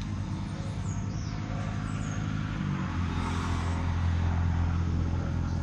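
An engine running steadily, its pitch shifting slightly about halfway through. A bird gives a high, falling whistled call near the start.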